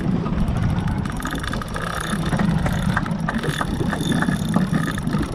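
Boat engine running with a steady low hum under wind buffeting the microphone, with runs of fast light ticking through the middle.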